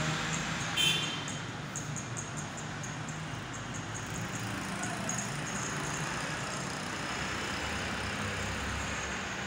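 Steady background road-traffic noise, with a brief sharp high-pitched sound about a second in.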